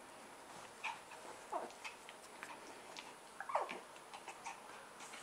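A Pomeranian and a Chihuahua play-wrestling on bedsheets: two short whining cries that fall in pitch, one about a second and a half in and a louder one about three and a half seconds in, among light scrabbling and rustling of the sheets.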